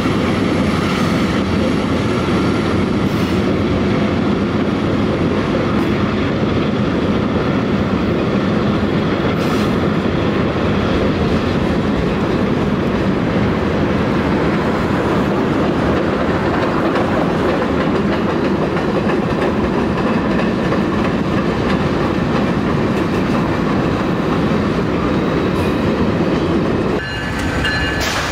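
Freight train passing close by: diesel locomotives working past, then the freight cars rolling by with their wheels clacking over the rail joints. Near the end the sound drops back and a locomotive horn starts to sound.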